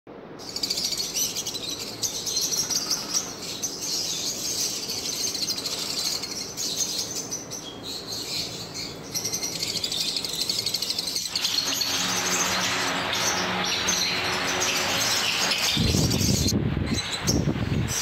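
Rosy-faced lovebirds chattering in a cage, a continuous run of high chirps and twitters. A louder, low rustling noise joins in near the end.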